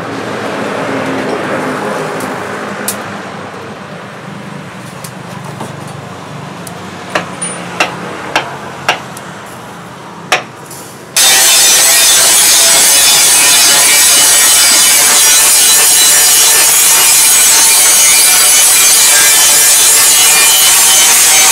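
Hot steel blade plunged into a tall quench tube, hissing and sizzling, strongest in the first few seconds and then fading, followed by five sharp clicks. About eleven seconds in, a loud, steady rasping noise cuts in abruptly and covers everything.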